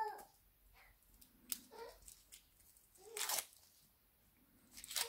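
Faint handling noises as a plastic Kinder Surprise capsule is worked open by hand: a small click, then two brief rustling scrapes.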